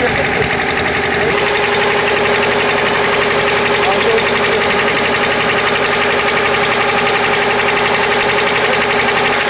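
An engine running steadily with a constant hum, and faint voices beneath it.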